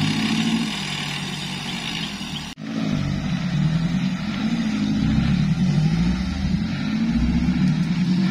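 Engines of off-road 4x4 SUVs running under load and revving as they crawl through mud. The sound breaks off abruptly about two and a half seconds in, then a nearer engine is heard with its pitch rising and falling as it drives.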